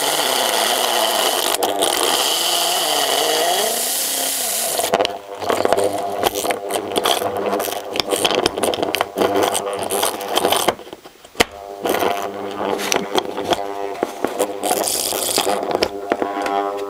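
The small DC motor of a dismantled Commodore electric fuel pump, run by hand-holding its armature in place without its bearing. It gives a steady whirr with a wavering pitch for about five seconds. Then it turns to a choppy, stuttering buzz with scraping and rattling as the armature drags and catches on the magnets.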